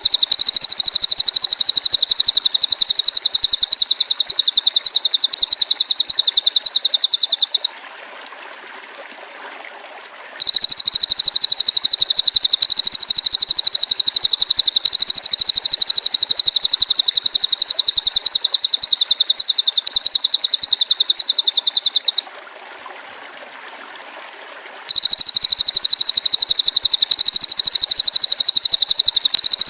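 Very high, fast-pulsing trill from a songbird-training (masteran) recording, running in long stretches and stopping twice for a couple of seconds.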